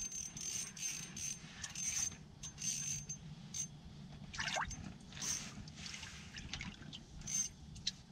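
Fishing reel clicking in uneven runs of short ratcheting bursts while a heavy whitefish is fought up through the ice hole; the clicks come thickly for about the first three seconds, then more sparsely.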